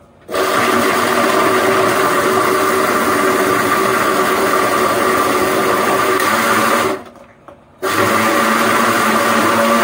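Countertop blender running steadily, blending gulaman and milk into a shake. It stops about seven seconds in and starts up again within a second.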